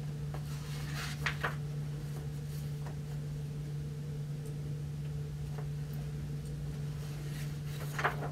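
Paper pages of a hardcover picture book rustling as it is handled and turned, in a few short bursts about a second in and again near the end, over a steady low hum.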